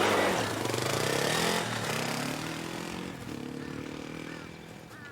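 A motor vehicle engine revs up and pulls away, rising in pitch as it accelerates, and fades steadily as it leaves.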